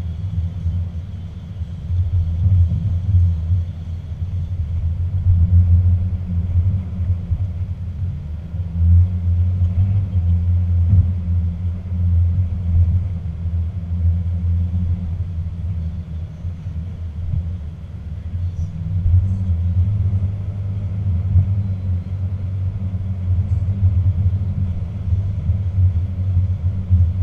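Low, steady rumble of a 2016 Toyota Tacoma TRD Sport 4x4 pickup, heard from inside the cab as it climbs a rough dirt trail. It swells and eases every few seconds.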